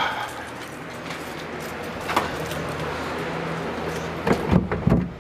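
PVC drain pipe being worked through a drilled hole in a wooden wall, scraping, with a click about two seconds in and a few knocks near the end as it stops going any further. A steady low hum runs underneath.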